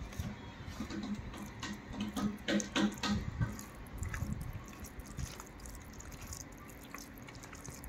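A hand squishing raw chicken pieces with curd and spice powders in a bowl, mixing the marinade: irregular wet squelches and clicks, busiest about two to three seconds in and fainter toward the end.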